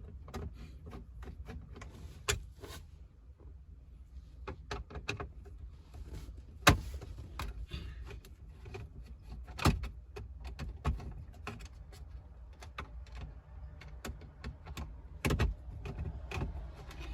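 Scattered clicks, taps and knocks of a screwdriver and hands working at plastic dash trim as two trim screws are taken out, with a few sharper knocks among them, over a steady low rumble.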